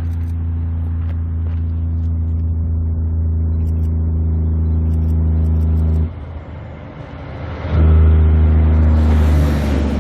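Kenworth C509 road-train prime mover's diesel engine pulling hard under a heavy oversize load, a loud steady drone. It drops away for a moment about six seconds in, then comes back just as loud before easing off near the end.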